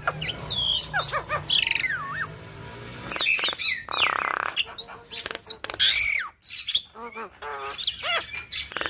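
Javan myna chattering through a varied song: quick whistled glides and clicks, a harsh rasping note about four seconds in, and a fast rattling trill near the end.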